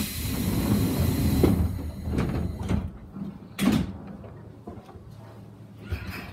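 Yamaman Yukarigaoka Line people-mover car standing with its doors working: a sudden hiss of air with a low rumble that fades over a couple of seconds, then a few knocks and a louder thump at about three and a half seconds as the doors shut.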